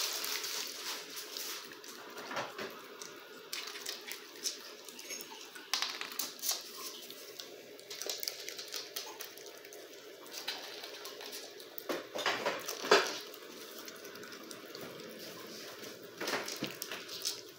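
Raccoon chewing peanuts: irregular crunching and small clicks, with nuts knocking on a hardwood floor. The sharpest click comes about thirteen seconds in.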